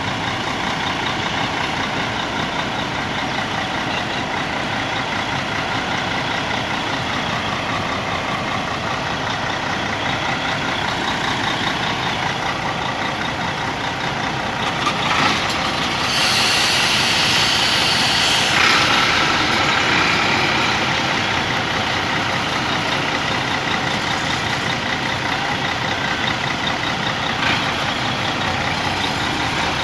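Mercedes-Benz coach diesel engine running steadily. About sixteen seconds in, a loud burst of compressed-air hiss lasts a couple of seconds.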